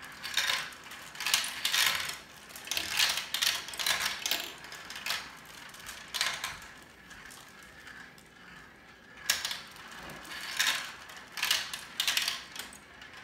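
Marbles clattering down a plastic marble run's tracks and chutes, in a string of rattling, clicking bursts with a short lull a little past the middle.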